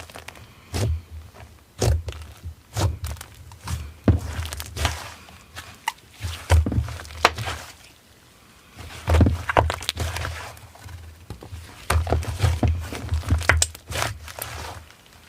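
Slime being squished and pressed by hand: irregular soft thumps and sticky clicks in short clusters, with a quieter pause about eight seconds in.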